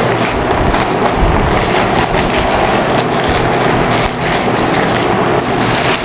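Paper and plastic sheets crinkling and rustling as they are peeled back off a bucket of biryani, over a steady rushing background noise.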